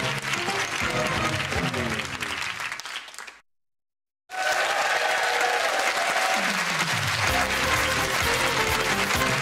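Studio audience applauding over upbeat show music. The sound fades out about three seconds in, then breaks to complete silence for about a second. It comes back at full level, with the music and applause together again.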